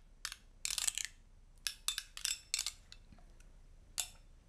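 Metal spoon stirring mayonnaise and grainy mustard in a glass bowl, clinking and scraping against the glass about seven times at an uneven pace.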